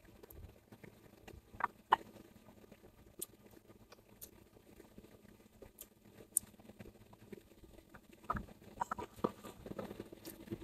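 Quiet eating sounds: scattered light clicks and taps of utensils against a bowl, coming closer together near the end.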